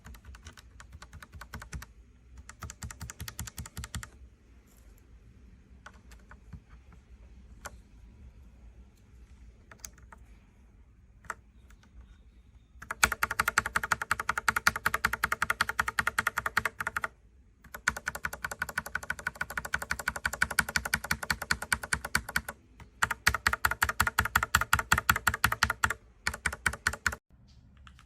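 Typing on a mechanical keyboard fitted with factory-lubed Gateron Pro Milky Yellow linear switches. For the first dozen seconds the key presses are quieter and scattered. From about halfway, fast, continuous typing comes in three runs with brief pauses between them.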